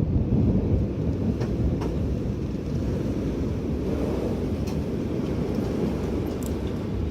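Strong winter wind blowing steadily, heard mostly as a deep low rumble, with a few faint ticks scattered through it.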